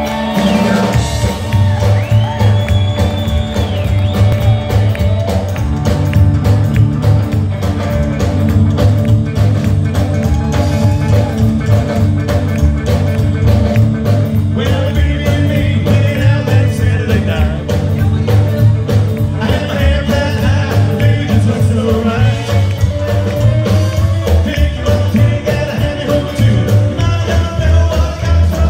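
Live rockabilly band playing: upright double bass, drum kit and hollow-body electric guitar, with the bassist singing lead.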